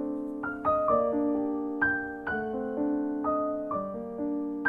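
Background piano music: a slow, gentle melody with a new note struck about every half second and left to ring.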